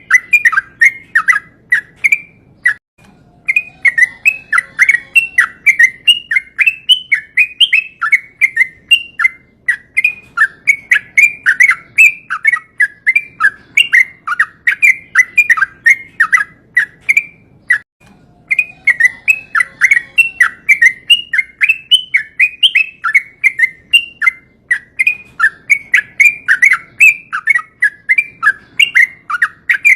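Yellow-vented bulbul (trucukan) singing a long rolling song of rapid, bubbly, repeated chattering phrases, with two brief pauses.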